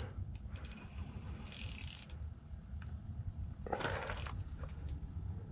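Ice-fishing reel and rod being worked while a big northern pike is fought on the line: clicking and short ratcheting bursts, the loudest a little before the end, over a steady low rumble.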